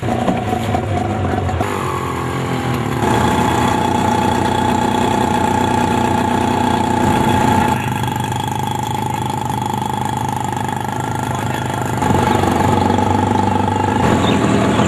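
A motor engine running steadily with an even hum. Its pitch and loudness shift abruptly a few times.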